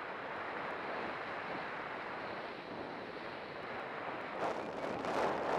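Steady rush of wind over the microphone mixed with the hiss of sliding fast down a groomed ski piste, with two louder surges near the end.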